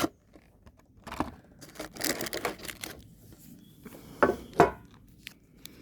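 Foil booster packs and packaging rustling and crinkling as they are handled, with two sharp knocks close together about four seconds in.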